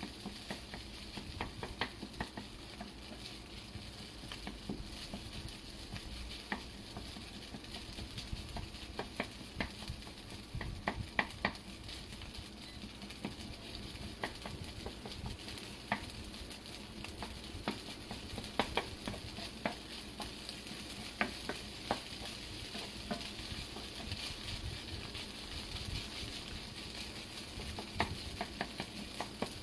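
Fried rice sizzling in a nonstick frying pan while a wooden spatula stirs and scrapes through it, with frequent small irregular clicks of the spatula against the pan over a steady frying hiss.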